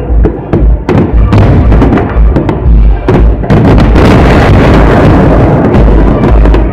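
Fireworks salute bursting in rapid succession: loud booms and sharp bangs, with a dense spell of crackling from about halfway through to near the end.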